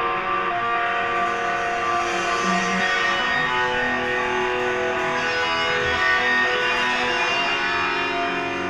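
Electric guitars of a live rock band playing a melodic instrumental passage, ringing notes that change about every half second to a second, with no singing.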